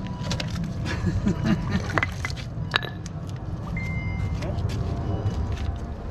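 Scattered metallic clicks and taps of a screwdriver working at the door of a small metal safe, with one sharp knock near the middle, over a steady low rumble.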